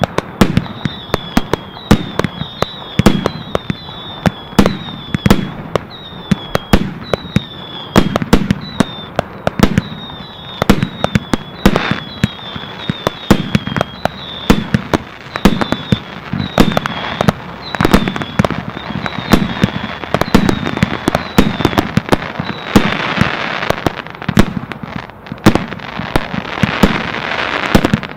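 Fireworks going off in rapid succession: sharp bangs one after another, many with a short, high, falling whistle. Near the end the whistles stop and a dense hiss fills in between the bangs.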